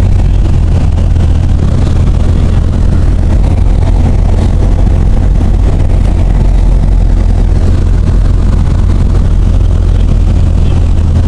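Small propeller aircraft's engine and propeller running steadily, heard from inside the cabin as a loud, constant low hum.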